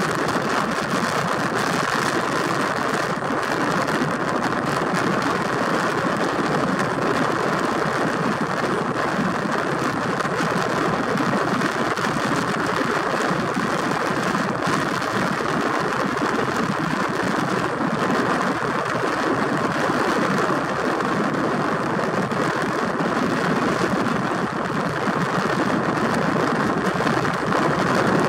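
Steady, even rushing drone of a Seastreak ferry under way: engine noise mixed with the rush of its passage through the water and air.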